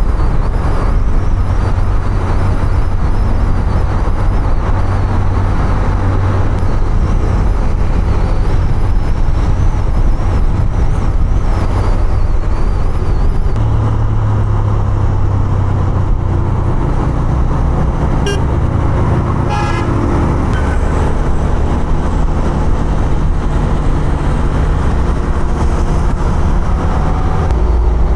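Honda CB 150F single-cylinder motorcycle engine running under way in traffic, with road and wind noise. Its note steps up about halfway through, and a vehicle horn toots briefly about two-thirds of the way in.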